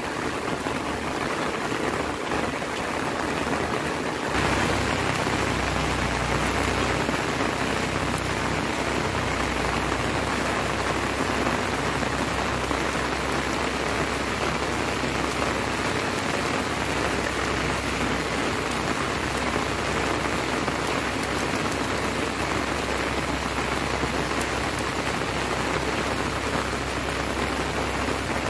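Steady rain falling on a paved lane, grass and flooded paddy fields, an even hiss with no break; it turns fuller and heavier about four seconds in.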